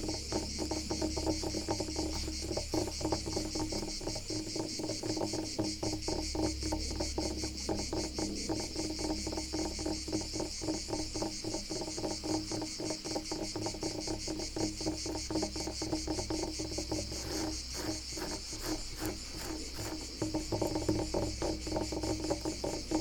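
Rapid, continuous scratching strokes on wood, over a steady chorus of crickets chirping.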